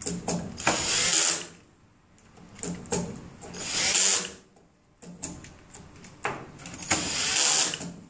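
Cordless drill/driver run in three short bursts about three seconds apart, driving screws into terminal-block clamps, with small clicks and taps of hand tools and wires between the bursts.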